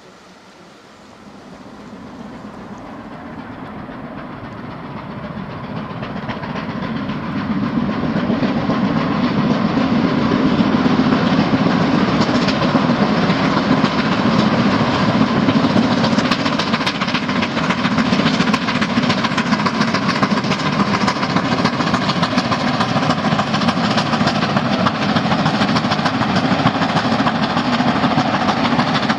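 Steam locomotive hauling a train of passenger coaches, growing louder over the first several seconds as it comes closer, then running loud and steady with the rapid clicking of wheels over the rails.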